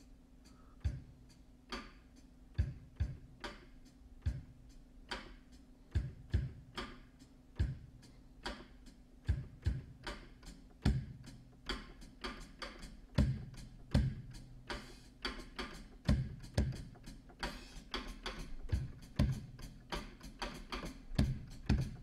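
Sampled acoustic drum kit in Superior Drummer 3, played live from MIDI: a loose rhythm of kick drum, snare and hi-hat hits, growing busier about halfway through.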